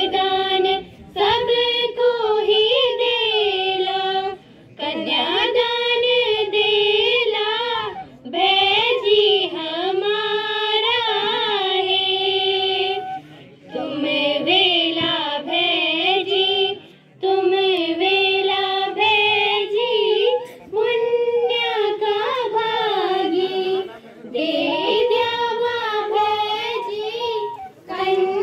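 Schoolgirls singing a Pahadi (Garhwali) folk song into a microphone over a PA, in melodic phrases of about three to four seconds with short breaths between.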